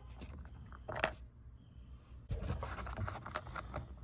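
A sharp click about a second in, then light scraping and small clicks: a screwdriver working a small screw out of the plastic door-handle trim of a car door.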